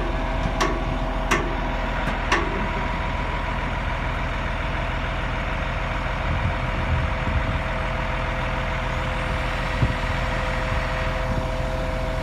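Wheel loader's diesel engine running steadily with a constant whine over it. There are a few sharp clicks in the first couple of seconds and a low thump about ten seconds in.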